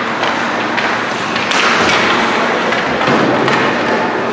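Ice hockey play: skate blades scraping the ice over a steady hiss, with sharp knocks of sticks and puck, the loudest about one and a half seconds in.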